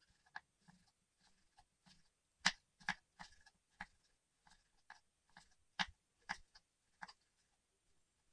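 Kitchen knife slicing a peeled chayote into thin slices on a wooden cutting board: short cuts and taps of the blade on the board, irregular, roughly two a second.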